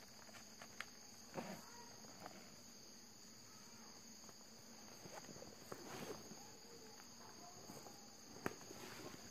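Faint, steady high-pitched drone of insects, with a few soft rustles of dry leaves and handling noise about a second and a half in, around six seconds and near the end.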